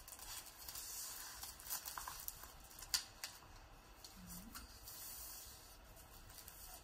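Faint scratching and rustling of pens on paper in a quiet room, with scattered small ticks and one sharp click just under three seconds in. A brief low hum from a voice follows a little after four seconds.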